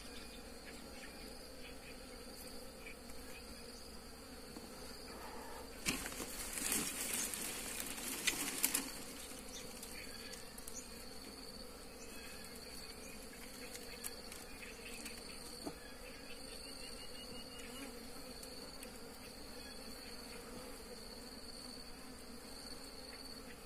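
Wild honeybees buzzing steadily in a low drone around their disturbed nest, with a thin, steady, high insect note behind. Between about six and nine seconds in there is a spell of louder rustling and crackling.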